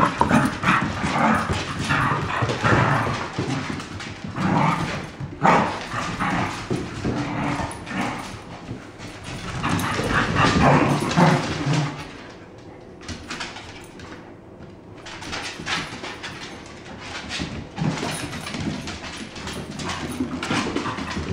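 Two Cardigan Welsh corgis, an adult and a puppy, play-fighting, with barks and yips; loud for about the first twelve seconds, then quieter with scattered short sounds.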